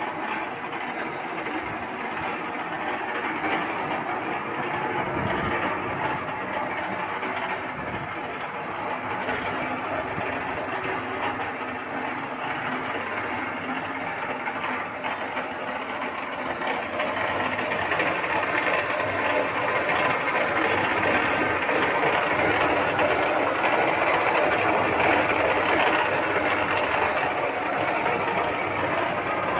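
Concrete mixer running with a steady mechanical drone and rattle, growing louder a little past halfway.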